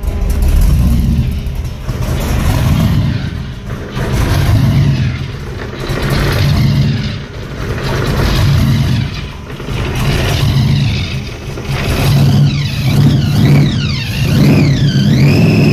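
1969 Corvette Stingray's 427 big-block V8 with a Weiand Roots-type supercharger and two Holley carburettors, revved over and over, swelling and dropping back about every two seconds. In the last few seconds the supercharger's whine rises and falls with each rev.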